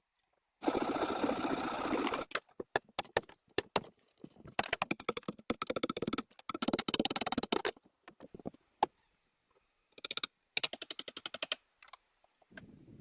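Several short, abruptly cut bursts of rapid clattering and knocking, each lasting about one to two seconds.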